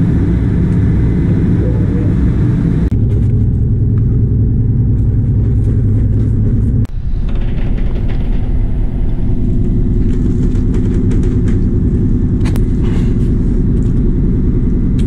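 Fishing trawler's engine running steadily on board, a loud low hum that shifts in tone at picture cuts about three and seven seconds in. A few faint clicks near the end.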